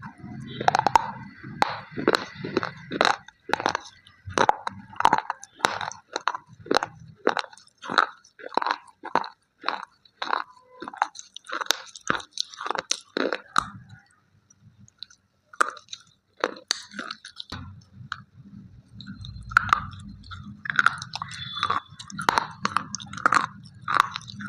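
Slate pencils being chewed close to the microphone: sharp, dry crunches at about two a second, pausing briefly a little past halfway before the chewing resumes.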